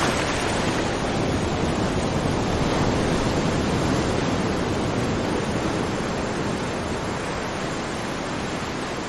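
Running water from a stream, a steady unbroken rush.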